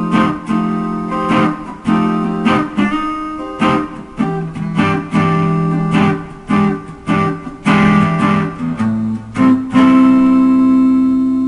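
Guitar music: a run of strummed chords, ending on one long held chord that rings out and fades.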